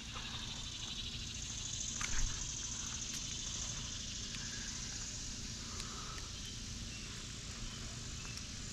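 Faint, steady outdoor background: a high hiss over a low rumble, with a short knock about two seconds in.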